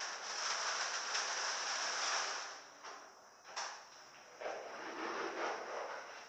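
Filter media poured from a sack into a fibreglass filter vessel: a rushing hiss for about two and a half seconds, a single click, then a second, duller spell of pouring about four and a half seconds in.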